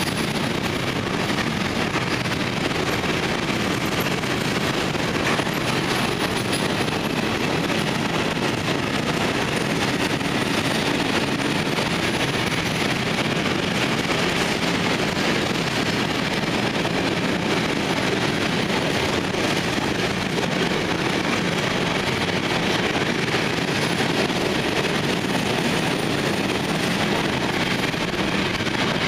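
A freight train's covered sliding-wall wagons rolling past close by at steady speed: a continuous, even noise of steel wheels running on the rails.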